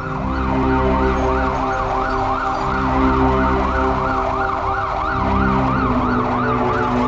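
Siren yelping, its pitch rising and falling about three times a second, over a low sustained music bed.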